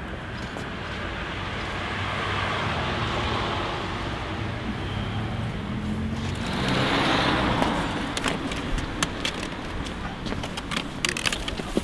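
Street traffic: a car passes with a swelling then fading tyre-and-engine rush about six to eight seconds in, over a steady traffic rumble. A scatter of light sharp clicks follows near the end.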